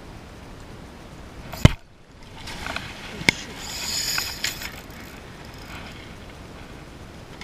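A sharp, loud knock about a second and a half in. Then water splashes and churns against the kayak for a couple of seconds, with a sharp click in the middle, as a hooked tarpon thrashes and tows the kayak. A steady hiss of wind and water runs underneath.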